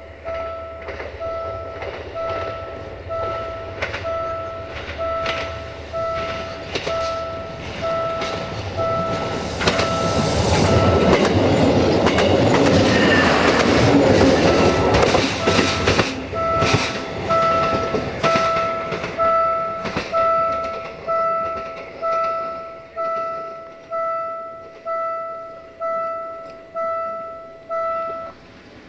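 Level-crossing warning bell ringing about once a second, each ring fading out. From about ten seconds in, a Duewag BR628 diesel multiple unit passes close by for several seconds, its wheels clicking over the rail joints and drowning out the bell. The bell then rings on and stops near the end.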